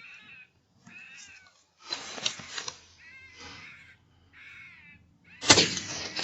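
Electronic predator caller playing repeated short, wavering, squealing distress calls to draw in a fox. About five and a half seconds in comes a single sudden loud bang that trails off, fitting a shot from the Sako 75 rifle in 6PPC.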